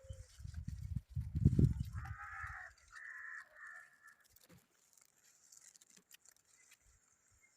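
A low rumble on the microphone, loudest about a second and a half in, followed by two harsh animal calls about two and three seconds in.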